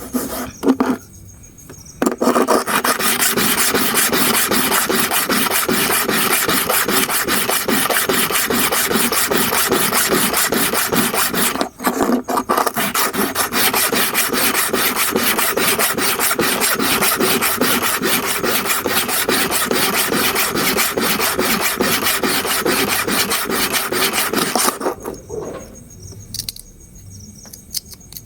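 Hair clipper blade being rubbed back and forth on a diamond sharpening stone freshly wetted with a drop of lubricant, giving a fast, even rasping scrape. The strokes pause briefly about a second in and again around the middle, then stop a few seconds before the end.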